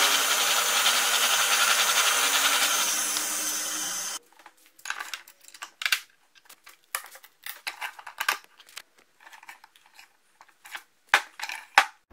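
Drill press running for about the first four seconds, then cutting off suddenly. After it, a series of irregular light clicks and knocks of small metal parts and tools being handled.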